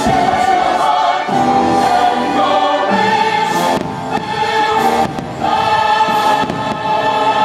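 A choir singing long held chords over music: the fireworks show's soundtrack.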